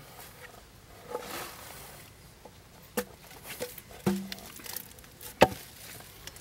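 Wooden planks knocking as they are set down in an earth pit: a rustle about a second in, then a few sharp wooden knocks, the loudest a little past five seconds in.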